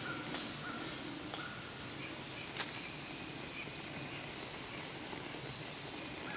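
Steady high trilling of insects, such as crickets, in the background, with one sharp click about two and a half seconds in.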